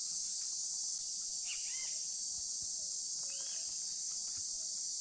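Steady high-pitched insect chorus, with a few faint short bird chirps rising and falling about a second and a half in, at three and a half seconds, and near the end.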